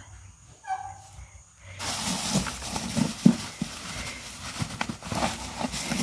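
Dry wood shavings rustling and crunching as a hand digs through them in a plastic nesting bucket, starting about two seconds in, with irregular crackles and one louder crunch.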